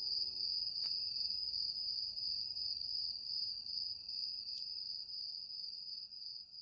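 Crickets trilling steadily in one continuous high chirr, with the last notes of soft music fading out about half a second in.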